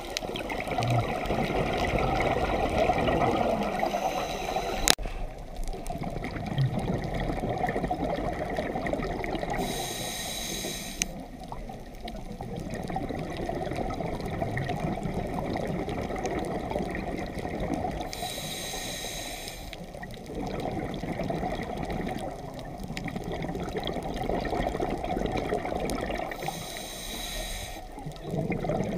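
Scuba diver breathing through a regulator underwater: three short hissing inhales about eight to nine seconds apart, with long bubbling exhalations rumbling between them. A single sharp click about five seconds in.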